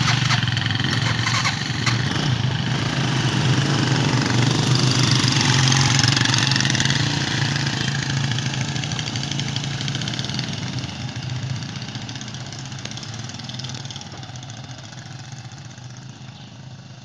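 Several small motorcycles pulling away together and riding off, their engines steady for the first several seconds, then fading gradually as they move into the distance.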